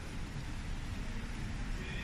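City street ambience: a steady low rumble of traffic with no distinct events.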